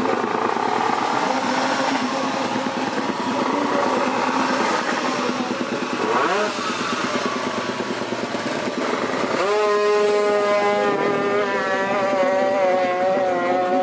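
Drag-racing motorcycle with a Kawasaki Ninja engine and twin exhausts, running while it stands in the pits: a steady fast idle, one quick rev up and down about six seconds in, then a sudden step up to a higher held pitch about nine seconds in that wavers toward the end.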